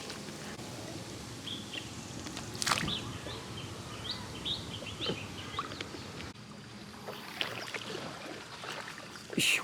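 Shallow field water sloshing and splashing, with a sharper splash a few seconds in and another near the end, while small birds chirp briefly in the background.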